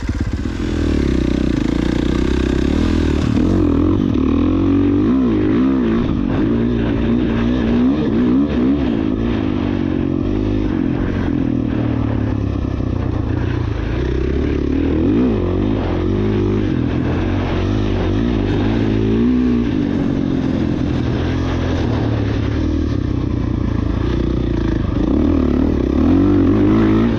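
Dirt bike engine running while being ridden, its pitch rising and falling again and again with the throttle.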